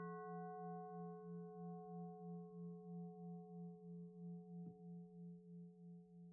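Singing bowl ringing out after a single strike, its hum fading slowly with a wavering pulse about three to four times a second.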